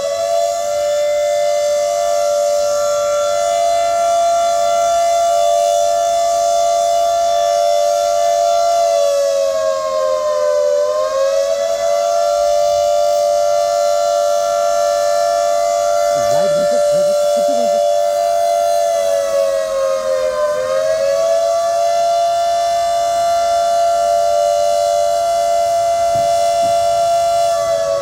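Civil-defence siren wailing: a loud held tone that dips in pitch and climbs back about every ten seconds.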